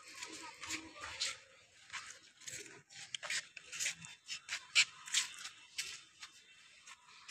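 Footsteps scuffing and scraping on a paved path scattered with dry leaves: irregular short strokes, about two a second.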